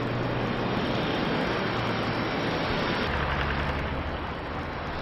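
Steady rushing noise of the erupting Cumbre Vieja volcano on La Palma, with a faint low hum beneath; the sound changes abruptly about three seconds in.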